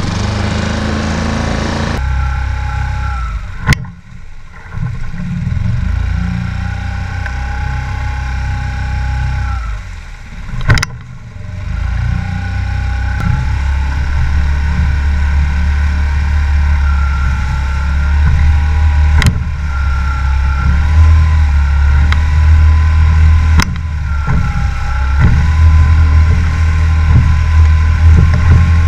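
Small outboard motor pushing a skiff under way, a steady low engine drone that gets louder about twelve seconds in as the boat picks up speed. A few sharp knocks cut through it.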